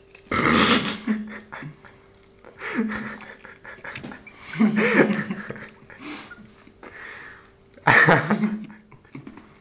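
Four short bursts of breathy laughter with quiet gaps between them.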